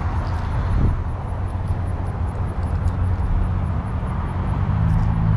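Steady low rumble of highway traffic and wind on the microphone, with a passing vehicle's hum growing louder near the end.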